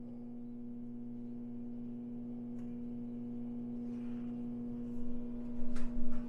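A steady low droning hum of a few held tones, with a couple of short sounds near the end.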